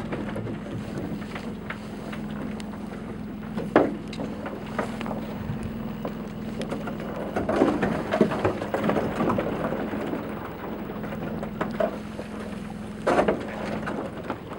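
Small boat's engine running with a steady low hum while the boat moves through floating brash ice, with irregular knocks and clatter as ice bumps the hull, loudest about four seconds in and again near the end.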